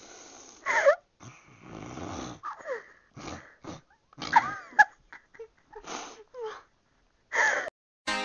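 A young woman imitating a rhino with her voice: about ten short, separate noises, rough breathy blasts mixed with brief high squeaky cries that bend up and down in pitch, with short gaps between them.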